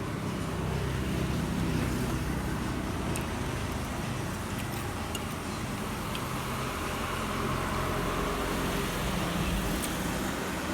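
Steady road traffic noise, with a vehicle passing by about two-thirds of the way through.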